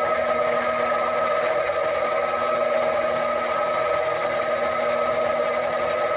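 Small metal lathe running steadily with a constant whine as a cutting tool turns a spinning metal workpiece, throwing off stringy chips.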